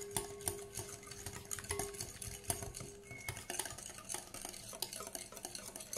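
Wire whisk beating cake batter in a glass bowl, the wires clicking and scraping against the glass in a quick, irregular rhythm.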